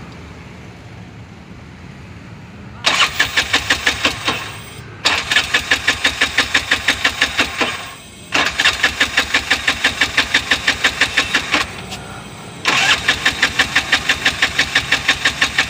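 Bajaj BS6 auto-rickshaw engine turned over on the electric starter in four separate bursts of two to three seconds each, with an even chugging of about six compression pulses a second, and never catching. It is being cranked so that the injector, fed cleaning spray, gets pulsed.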